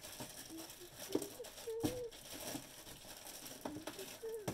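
Faint rummaging and handling: scattered small clicks and knocks of objects being moved about, with a few short wavering tones in between.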